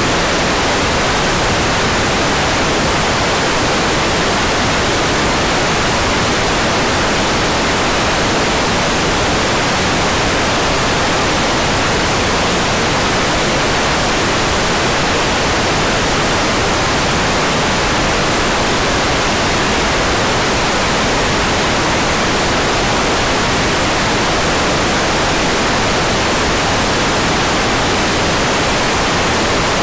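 Hair dryer running steadily: an even, constant rush of air with no change in pitch or level.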